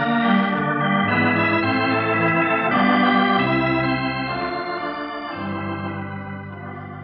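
Organ music bridge marking a scene change: a slow run of held chords that gets quieter toward the end.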